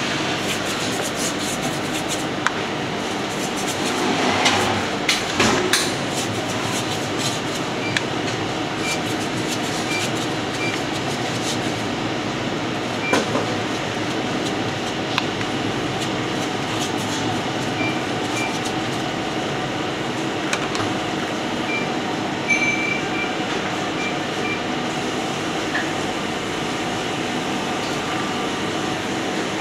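Steady rumbling kitchen background noise with occasional light knocks and taps, a cluster of them about four to six seconds in, and a few faint short high pips.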